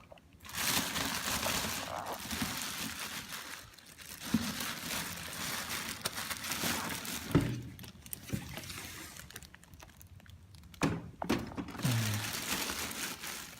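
Plastic packaging rustling and crinkling as a new printer's accessories are unpacked by hand, with a single thunk a little past the middle.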